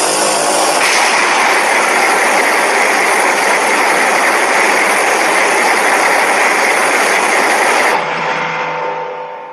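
Custom kaiju monster sound effect: a loud, steady rushing noise with faint tones running through it. It drops about eight seconds in and fades out.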